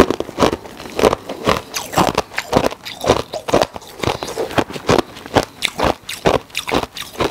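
Ice being bitten and chewed close to the microphone: loud, sharp crunches, about two a second.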